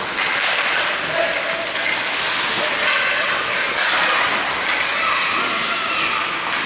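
Steady hiss of ice skate blades scraping and carving across a rink during play, with faint distant shouts.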